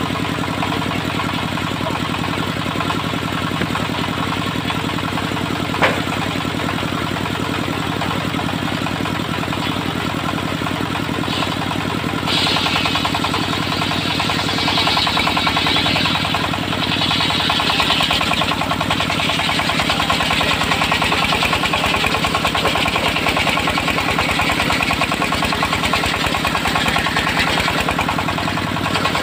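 Engine-driven homemade circular sawmill running steadily. From about twelve seconds in, a harsh hiss comes in over the engine as the blade cuts through the timber, swelling and easing in waves. A single sharp click about six seconds in.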